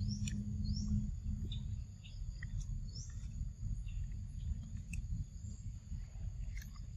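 Outdoor ambience: a steady low rumble, with a low hum in the first second. Birds give a few short rising chirps, and there are scattered faint clicks.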